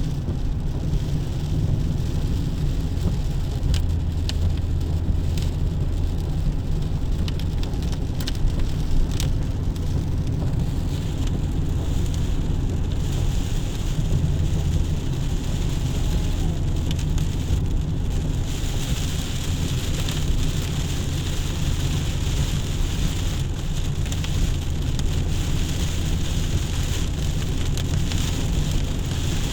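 Steady rain falling, with scattered sharp drop ticks in the first half, over a constant low rumble. The higher hiss of the rain swells about two-thirds of the way through.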